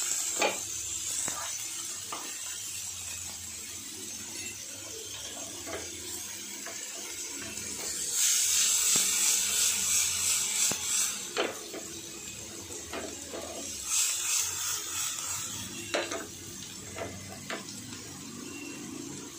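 Sprouted moth beans and onion sizzling in a nonstick frying pan while a spatula stirs and scrapes them, with scattered clicks of the spatula against the pan. The stirring gets louder for a few seconds about eight seconds in and again briefly about fourteen seconds in.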